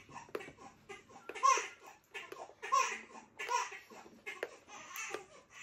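Young child laughing in short, repeated bursts, with a few light clicks in between.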